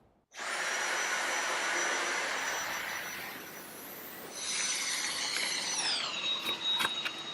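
Cordless stick vacuum motor starting up and running with a high whine over a steady rush of air. A little past halfway the whine glides down in pitch, and a few clicks follow near the end.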